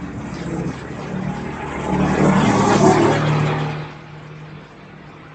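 A motor vehicle passing, its noise swelling to its loudest between about two and four seconds in and then falling away, over a steady low hum.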